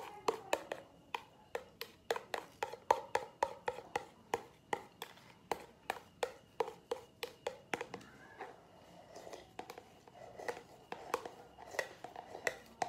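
Close-up eating sounds: a quick run of sharp clicks and taps, about three or four a second, as soup is spooned from a plastic bowl held at the mouth. The clicks thin out about eight seconds in.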